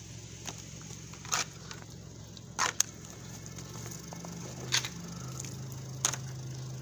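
Crushed aluminium drink cans clicking and crinkling as they are handled and shifted on wet asphalt: a handful of short, sharp ticks a second or so apart over a steady low hum.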